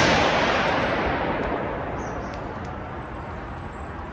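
A single sudden loud boom-like hit that dies away slowly and evenly over about four seconds.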